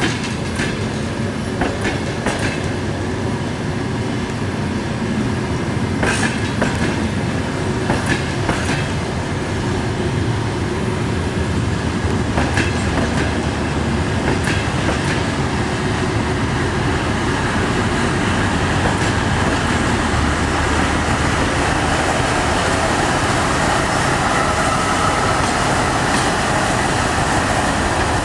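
DR1A diesel multiple unit rolling past, a steady rumble of wheels on rails with sharp clicks as the wheels cross rail joints, a few seconds apart in the first half. In the second half the diesel engine's hum grows louder as the power car comes close.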